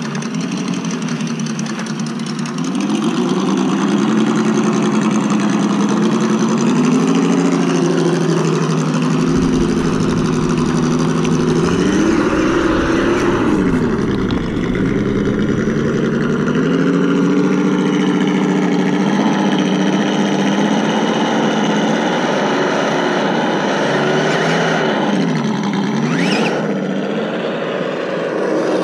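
Simulated engine sound from an ESS Dual sound module on an Axial Wraith RC rock crawler, played through the truck's small speaker. It revs up and down with the throttle, dipping sharply twice, near the middle and near the end.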